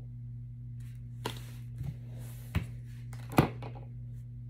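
Tarot cards being handled on a table: a soft rustle and a few light taps, the sharpest about three and a half seconds in, over a steady low hum.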